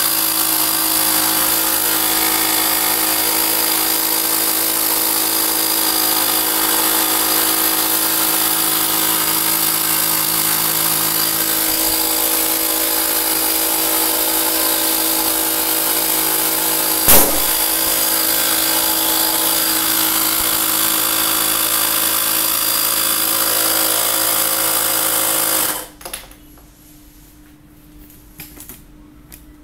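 Small 12-volt 300 psi piston air compressor running steadily while inflating a balloon. One sharp bang sounds about two-thirds of the way through. Near the end the compressor stops suddenly, leaving a few faint clicks.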